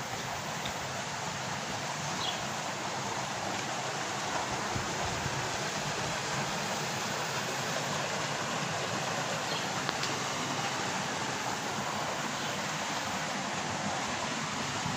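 Water running steadily along a narrow trout-farm channel, a constant rush.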